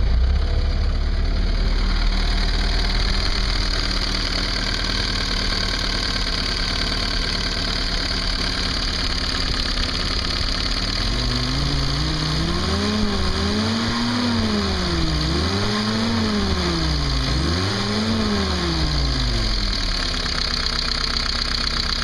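Turbocharged 1961 Jeep CJ5 134 ci F-head four-cylinder idling just after starting, then revved up and down about four times from roughly halfway through before settling back to idle. The lifters clatter, which the owner hears more than he used to.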